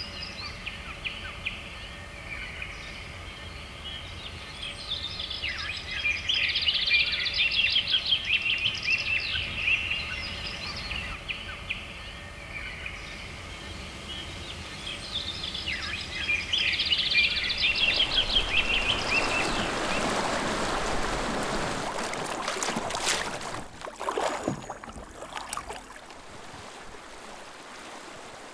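Birds singing with repeated chirping calls over a quiet lakeside for the first two-thirds. Then the sound of moving water rises and takes over, with a few sharper hits about two-thirds of the way in.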